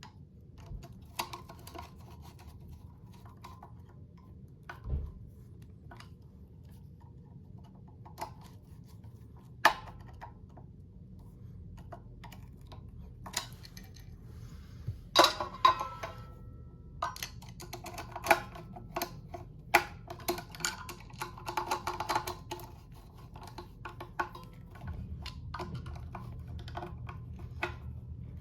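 Irregular small metal clicks and clinks of ceiling-fan hardware being handled and screwed together, as the blade irons are fastened to the fan motor. The sharpest clinks come in a cluster about halfway through.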